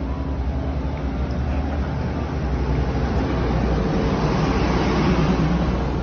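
Pingxi Line diesel train passing close by: a steady low engine hum under a rumble that builds to its loudest about four to five seconds in, then eases a little.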